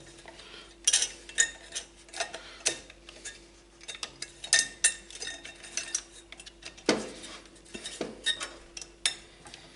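Irregular metallic clicks and clinks of a CPU air cooler's retention clips being hooked onto the motherboard mounting bracket and pressed into place.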